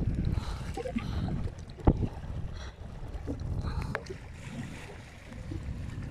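Wind buffeting the microphone in a low, steady rumble, with small waves lapping at the lake shore. A few faint clicks and one sharp knock about two seconds in.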